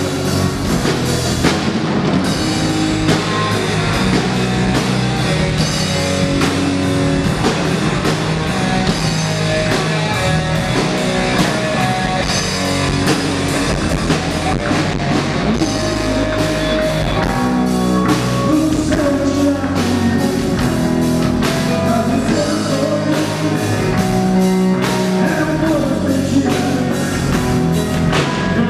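A rock band playing live: electric guitars through amplifiers over a drum kit, a steady full-band song without a break.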